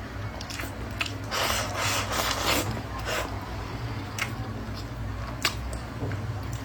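Eating sounds: utensils clicking and scraping against a bowl of rice, with a longer stretch of scraping between about one and a half and two and a half seconds in, over a steady low hum.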